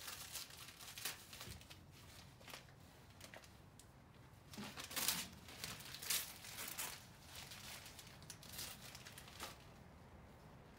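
Gift wrapping paper crinkling and tearing as a present is unwrapped by hand, in a run of short rustles with the loudest tears about five and six seconds in.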